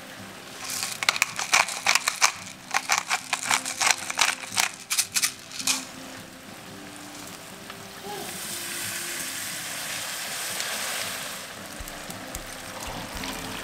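A quick run of sharp clicks and taps lasting about five seconds. From about eight seconds in comes a steady sizzle of lamb and vegetables frying in a cast-iron pot over coals, easing off near the end.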